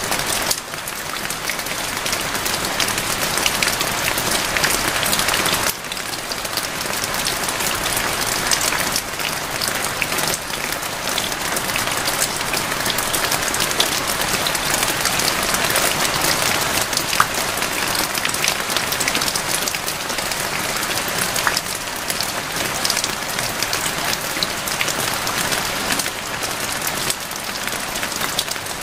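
Steady heavy rain: a dense, even hiss of falling water, peppered throughout with sharp ticks of single drops striking close by. It dips briefly about half a second in and again near six seconds in.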